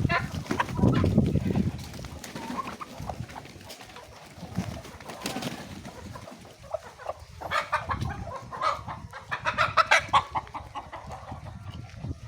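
A flock of local chickens clucking and squawking, the hungry birds calling most busily from about seven to ten seconds in. Low dull thuds and rustling in the first two seconds.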